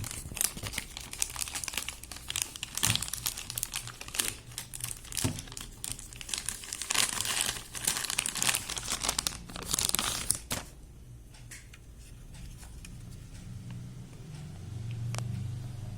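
Packaging being torn open and handled, crinkling and tearing with many sharp crackles for about ten seconds, then stopping. A single faint click follows near the end.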